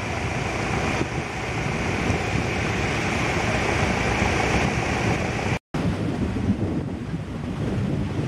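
Sea surf washing in over shallows, with wind buffeting the microphone. The sound cuts out completely for a moment about five and a half seconds in, then carries on slightly duller.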